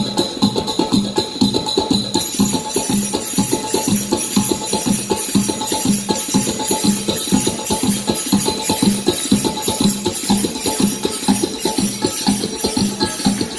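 Dance music with a fast, steady drum beat and jingling percussion; the jingles grow brighter about two seconds in.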